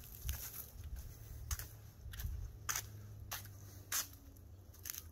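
Footsteps on a paved path: faint, sharp scuffs about every half second to second, over a low rumble of handling noise.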